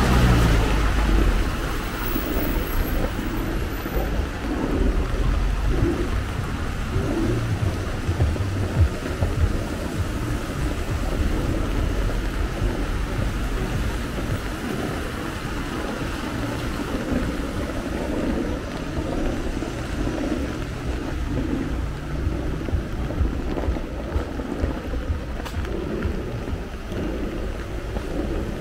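Busy city street in light rain: steady traffic noise and tyres on a wet road with a low rumble.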